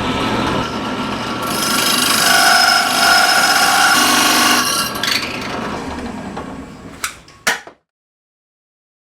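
A 3-inch carbide-tipped hole saw on a drill cutting into wood: a steady grinding, whining noise that grows louder about a second and a half in, holds for about three seconds, then eases off. Two sharp clicks come near the end before the sound cuts off abruptly.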